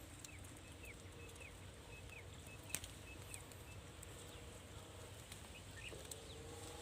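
A small bird chirping faintly outdoors: a run of about eight short, evenly spaced chirps in the first half, over a steady low hum, with one sharp click near the middle.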